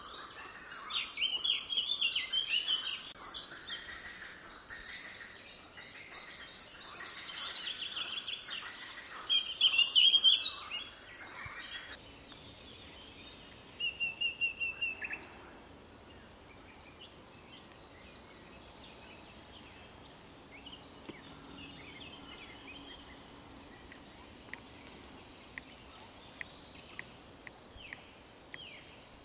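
Songbirds singing by a lake, a busy overlapping chorus of chirps and warbles for the first dozen seconds that stops abruptly. Then a short run of quick repeated notes, followed by fainter scattered chirps.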